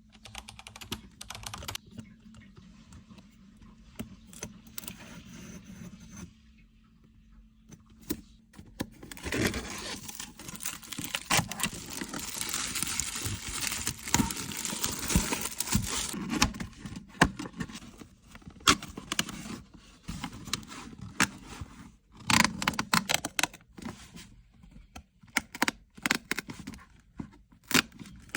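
Handling and opening of a blind-box toy's packaging: scattered clicks and taps of card and plastic, then a long stretch of crinkling and tearing as the sealed wrapper is opened, followed by more sharp clicks and taps.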